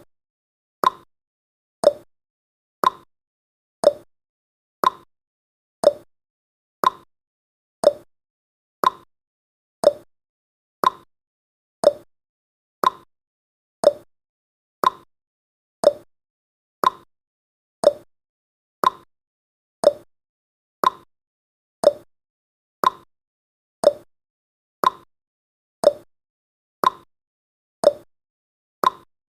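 Clock ticking sound effect: short, sharp ticks, one each second, evenly paced.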